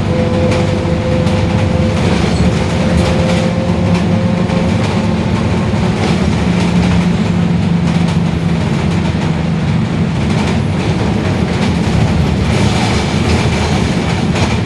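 Mercedes-Benz OF-1721 city bus under way, its rear-axle differential droning very loudly as a steady whine over the rolling and drivetrain noise, strongest in the middle.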